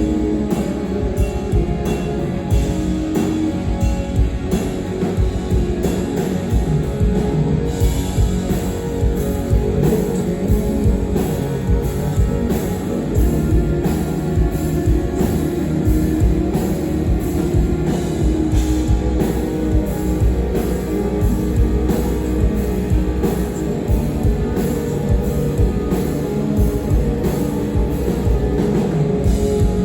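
A heavy rock band playing live: distorted electric guitars over a drum kit hit hard in a steady beat. The cymbals get brighter about eight seconds in.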